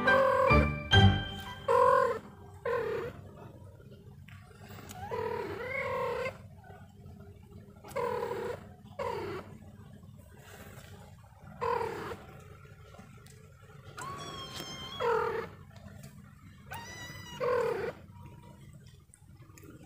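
Kittens mewing over and over, short high calls every second or two with a few longer, drawn-out cries among them. Background music fades out in the first second.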